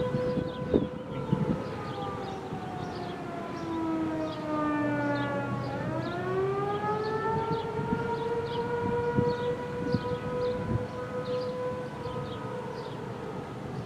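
American Signal Corporation T-128 outdoor warning siren sounding. Its tone holds steady, then slides down for about five seconds, rises quickly back up and holds steady again: one wail of the attack signal. Faint high ticking runs alongside.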